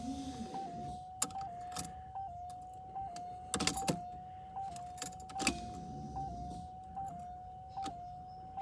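Electric fuel pump whining steadily as it primes the fuel system with the ignition on, its pitch wavering in a regular rise-and-drop. A few sharp clicks and knocks sound over it.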